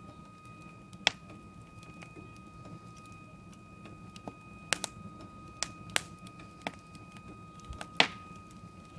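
Wood fire crackling, with scattered sharp pops, the loudest near the end, over a steady faint high whine.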